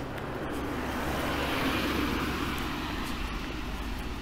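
A car passing close by, its tyre and engine noise swelling to a peak about two seconds in and then fading as it moves off ahead.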